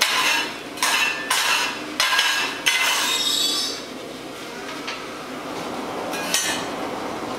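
Coke being shovelled and raked onto a forge fire: a metal tool scraping through the fuel while the lumps of coke clink together. It comes as a quick run of strokes over the first few seconds, then one more near the end.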